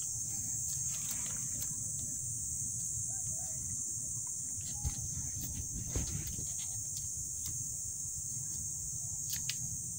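Outdoor ambience: a steady low rumble of wind on the microphone under a constant high-pitched insect drone, with a few faint clicks and taps, about halfway through and near the end.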